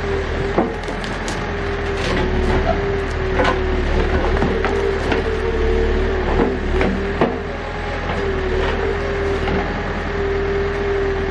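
Backhoe tearing out a tree stump: the diesel engine runs steadily with a constant held tone while roots and wood crack and splinter in many sharp snaps.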